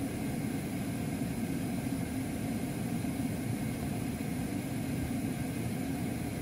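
Refrigerant gas flowing loudly and steadily through the electronic expansion valve of a switched-off Daikin VRV4 indoor unit: a low, even rushing sound. The valve cannot fully close because its EEV coil is faulty, which brings up error F4-02/F4-04.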